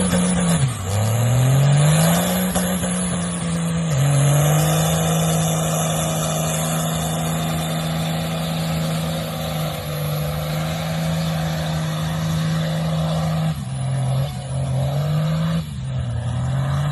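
Diesel truck engine revving hard and held at high rpm, with its pitch dropping sharply and climbing back up several times, under a steady high hiss.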